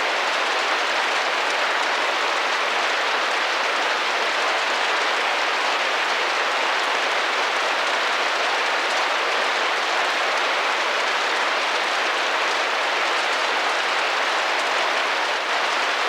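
Steady rain pattering on a window, an even dense hiss of drops without let-up.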